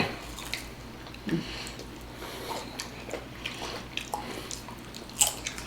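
Close-miked eating sounds: chewing and biting into food, with scattered small crunches and clicks.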